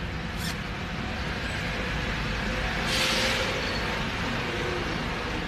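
Steady city street traffic noise, with a short hiss about three seconds in.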